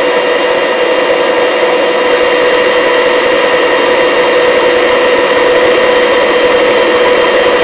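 Helicopter in flight: steady engine and rotor noise with a constant whine, unchanging throughout.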